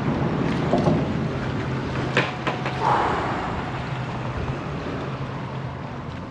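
Steady low engine hum under wind on the microphone, with a sharp knock about two seconds in.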